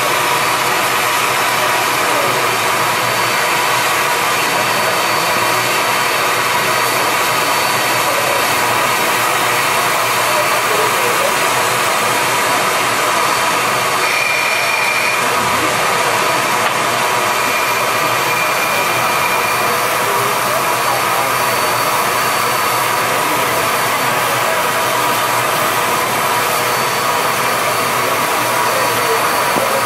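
Standing 0-6-0 steam locomotive hissing steam in one loud, unbroken rush.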